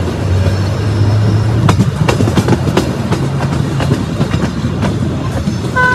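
Ride inside a moving vehicle: a steady low engine or motor hum with irregular rattling clicks, and a horn sounding right at the end.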